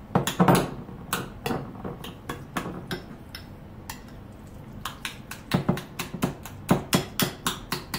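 Metal spoon clinking and scraping against a ceramic bowl as guacamole is stirred and mashed: irregular clicks and knocks, busiest in the last few seconds.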